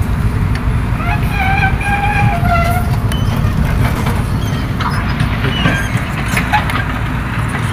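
Distant hydraulic excavator working on demolition rubble: a steady low rumble, with a few sharp knocks about five to seven seconds in.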